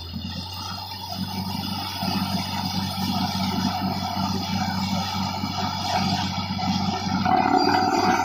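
Truck-mounted borewell drilling rig running while it drills, a steady low mechanical drone. A higher steady tone joins near the end.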